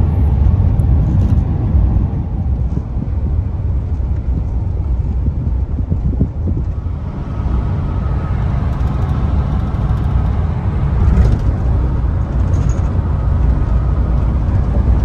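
Road and engine noise inside a passenger van's cabin at highway speed: a steady low rumble.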